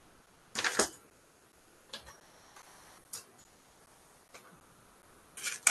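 Paper rustling as a manila envelope and the bid papers inside are handled at a desk: two short rustles, about a second in and again near the end, with a few light clicks between.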